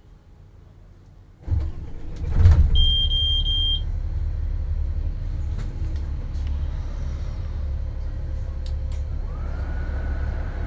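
Kayoola diesel coach's engine starting about a second and a half in. It surges briefly, then settles into a steady low idle. A dashboard chime beeps three times just after it catches, and a steady high whine comes in near the end.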